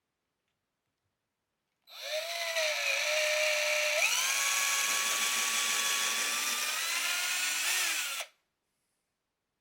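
Black+Decker 20V MAX cordless drill running for about six seconds, pre-drilling a pilot hole for a caster screw. Its motor whine jumps higher about two seconds after it starts, keeps rising slightly, and then stops abruptly.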